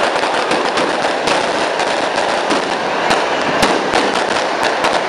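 Fireworks going off in quick, irregular succession: a dense crackle with many sharp bangs, a few louder ones a little past halfway.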